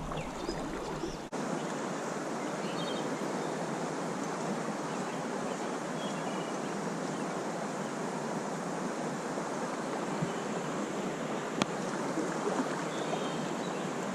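Steady rush of flowing creek water, with one sharp click late on.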